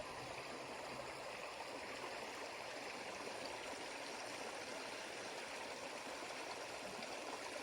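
Creek water running steadily, a faint, even rush of flowing water from a creek swollen after heavy rain.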